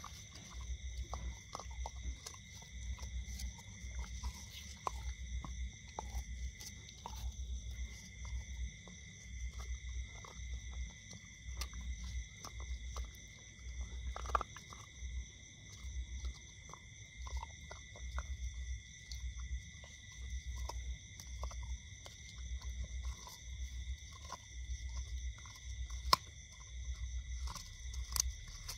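Dog gnawing and crunching on a cooked meat bone, with scattered sharp cracks and one louder crack near the end. Under it run a low rhythmic throb about once a second and a steady high insect drone.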